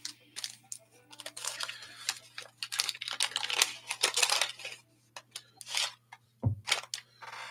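Wax-paper wrapper of a 1987 Topps baseball card pack being torn open and crinkled, in a series of short ripping and rustling bursts.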